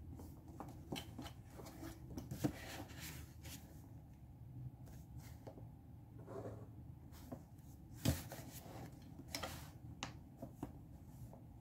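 Pen writing on paper worksheets, with scratchy strokes and paper rustles, as a clear plastic ruler is used and handled on the desk. Scattered sharp taps, the loudest about eight seconds in.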